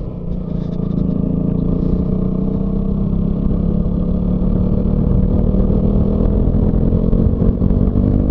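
Motorcycle engine running steadily under way, its note rising slowly in pitch in the second half as the bike speeds up, over low wind and road rumble.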